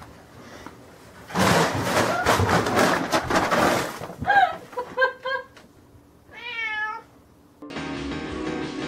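A plastic bag crackling and rustling loudly for a couple of seconds as a cat flails in it. Then come a few short meows and one longer, wavering meow. Strummed guitar music starts near the end.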